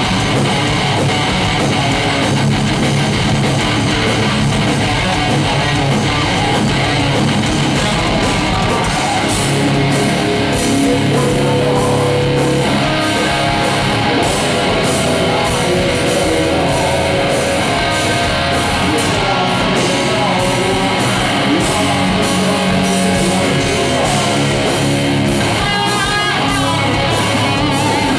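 A live hard rock band playing loudly and steadily: two electric guitars over a drum kit, heard through the venue's stage amplification.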